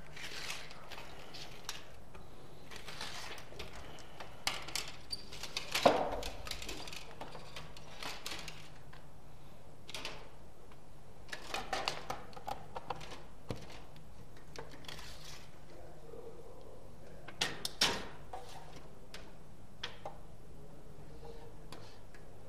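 Scattered clicks and rustles of a steel tape measure and a cardboard template being handled against a glass window pane, over a steady low hum. The sharpest clicks come about six seconds in and twice near eighteen seconds.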